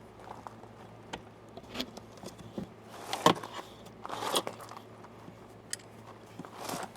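Flat-tip screwdriver and metal lock hardware clicking and scraping as an old compartment lock is worked loose, in scattered short clicks with a louder pair about halfway through.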